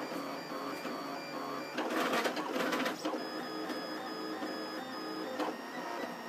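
Trinity Labs Aluminatus 3D printer running a print, its stepper motors driving lead screws with a whine that jumps between pitches as the print head changes moves. About two seconds in, a louder, busier stretch of rapid movement lasts about a second.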